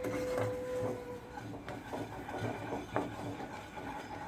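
Wooden spatula stirring and scraping thick, foamy homemade condensed milk in a nonstick pan off the heat, in repeated soft strokes about twice a second.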